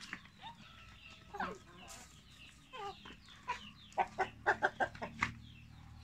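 Barred Plymouth Rock chickens clucking, with a quick run of about six loud short calls between four and five seconds in.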